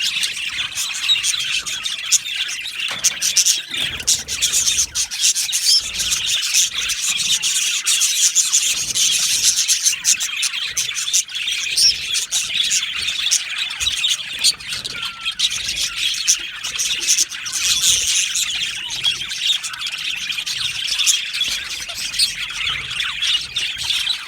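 A colony of budgerigars in an aviary chattering and chirping together: a dense, continuous warbling of many birds at once, with frequent short sharp chirps and squawks.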